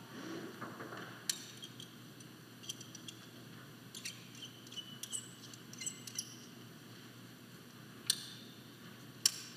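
Climbing rope being taken out of a belay device and locking carabiner at a harness belay loop: a few sharp metal clicks and short high clinks over soft rope handling, the belayer coming off belay.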